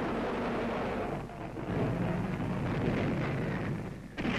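Air-raid rumbling of distant explosions, swelling and fading, then a sudden loud bomb blast near the end.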